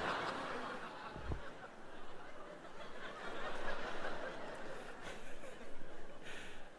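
Theatre audience laughing, loudest at the start and dying down, with a man chuckling quietly.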